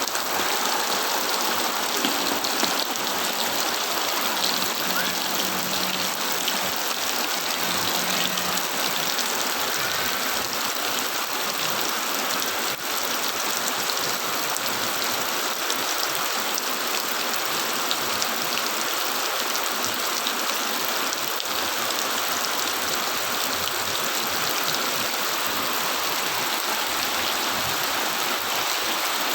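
Steady rain falling and splashing on surfaces, an even, unbroken hiss of water.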